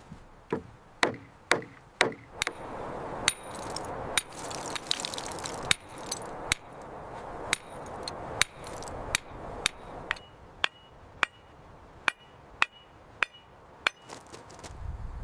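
Hammer blows struck one after another, about one to two a second. In the later part several of the blows ring briefly, like metal striking metal.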